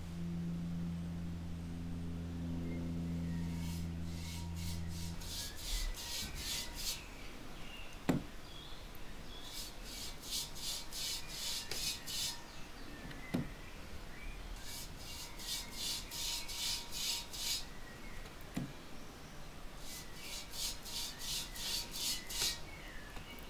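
Bristle brush scrubbing copper wash onto the dry clay surface of a moon jar, in quick back-and-forth strokes of about three or four a second, coming in four runs of a few seconds each. A few single sharp taps fall between the runs, and a low steady hum stops about five seconds in.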